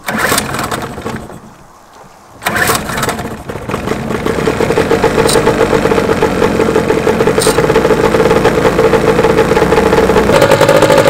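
Old 15 hp Evinrude two-stroke outboard, a two-cylinder, being pull-started cold on choke. The first pull does not catch. A second pull about two and a half seconds in starts it, and it runs steadily, its pitch stepping up slightly near the end.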